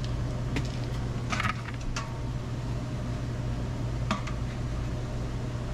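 A few short clicks and clacks of the shop vac's plastic accessory parts being handled and fitted together, over a steady low background hum.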